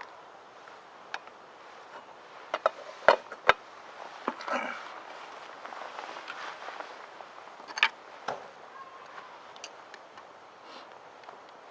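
A scattering of sharp clicks and knocks, the loudest pair about three seconds in, with a brief rustle soon after.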